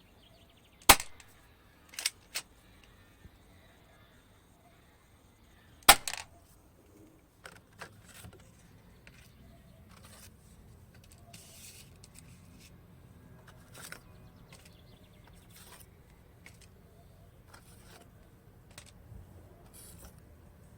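Two sharp airsoft gun shots about five seconds apart, the first followed shortly by two smaller clicks. After them come light, scattered handling clicks and rattles.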